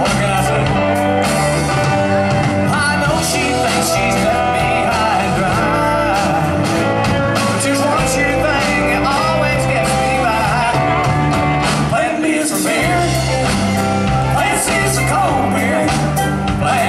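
Live rock band playing: electric guitars, drum kit and organ, with a male lead singer's voice over it. The bass end drops out for a moment about twelve seconds in.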